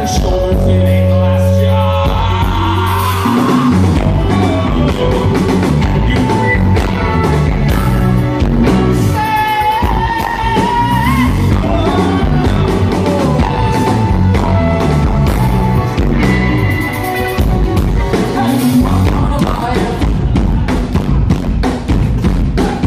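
Live rock band playing: drums, bass and electric instruments with a sung vocal line over them.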